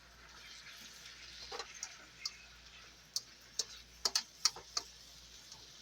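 Light clinks of a utensil against the cooking pan, about nine sharp taps in the middle few seconds, over a faint steady hiss of the cabbage cooking.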